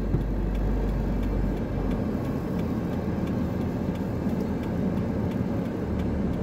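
Car engine running, heard from inside the cabin as a steady low hum; the deepest part of the hum eases off about two seconds in.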